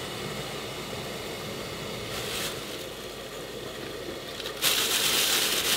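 Clay-pot steamer on a gas burner with its lid off: a steady hiss of boiling water and steam. About three-quarters of the way in, the hiss turns louder and harsher as the floured peppers go onto the hot steaming plate.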